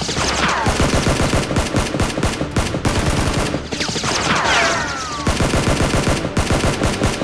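Rapid automatic gunfire sound effects, dubbed over toy blasters, firing in fast continuous volleys. Twice, near the start and again about four seconds in, falling whistling whines sound over the shots.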